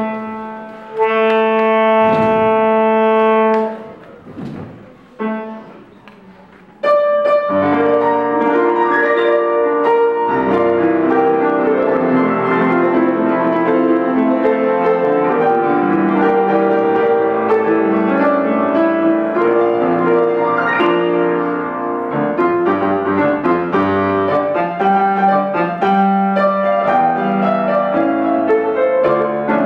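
Alto saxophone holds one long note, then after a short pause, about seven seconds in, saxophone and piano start playing a jazzy tune together.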